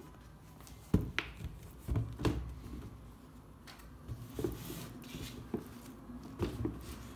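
Sneakers being handled and set down on a cardboard shoebox: a few short knocks and rubs as the shoes are placed and adjusted, the loudest knock about a second in.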